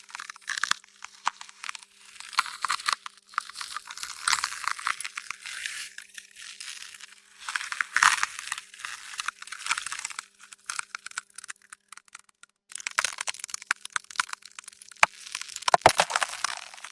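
Ice cracking: clusters of sharp crackling and snapping, with a pause of a few seconds past the middle and the loudest cracks near the end.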